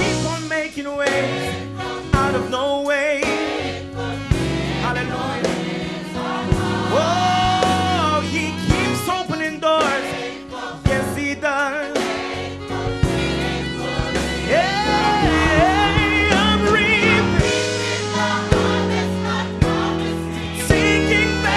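Gospel music: voices singing with vibrato over a band, with sustained low bass notes and sharp drum hits.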